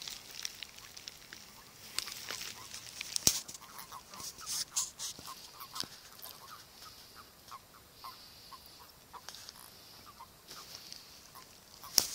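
Frogs calling in a run of short, quick croaks, with a few knocks and rustles from the phone being handled in the first few seconds.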